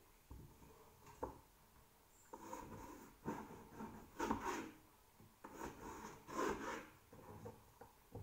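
Irregular scraping and rubbing noises, several short strokes with the loudest in the middle, from hands working with food or utensils at the kitchen counter.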